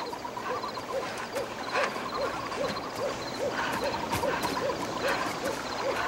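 Night-time animal sounds: a steady run of short, soft hooting calls that rise and fall in pitch, about two or three a second, over a faint high chirring trill.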